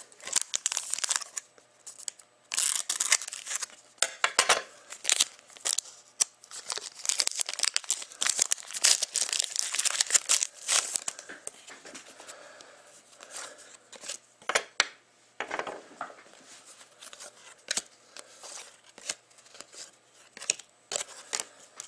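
Foil wrapper of a Panini Contenders hockey card pack crinkling and tearing as it is opened, busiest in the first half. Then sparser rustles and light clicks as the cards are slid out and handled.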